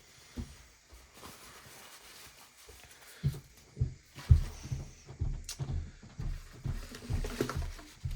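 Irregular low thumps and knocks of handling on a workbench, a few a second, starting about three seconds in, with one short sharp click near the middle.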